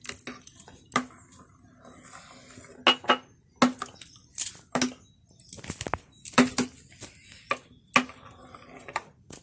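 Metal spoon stirring semolina (sooji) dosa batter in a bowl, clinking and knocking against the sides at irregular moments, with a soft wet swish of batter between the knocks, as more water is worked in to thin it.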